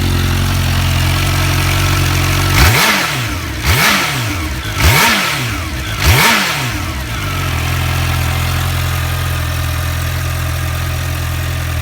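2016 Kawasaki Ninja H2's supercharged inline-four on its stock exhaust, idling and then blipped four times in quick succession, each rev rising and dropping back at about one-second intervals before it settles to a steady idle.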